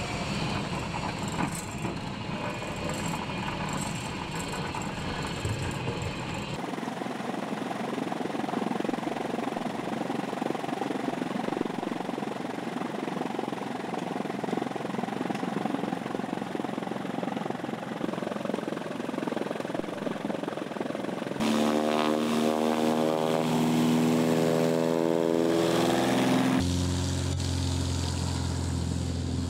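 Cabin noise of a single-engine propeller plane rolling out on landing, with a heavy rumble. It cuts off suddenly to an even outdoor hiss, and about two-thirds in a loud series of held tones stepping in pitch takes over, ending on a steady low hum.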